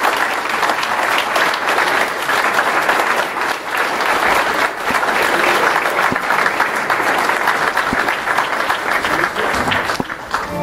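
Audience applauding, a dense steady clatter of many hands clapping that thins a little near the end.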